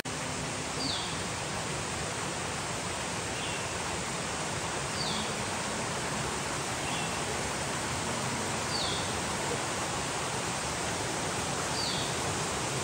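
Steady rush of a creek flowing over rocks, with a bird giving short, high, downslurred chirps every second or two.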